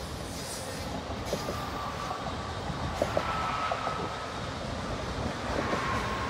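Freight train's autorack cars rolling past on the rails in a steady rumble, with a faint high wheel squeal coming in about a second and a half in and a couple of sharp clanks about halfway through.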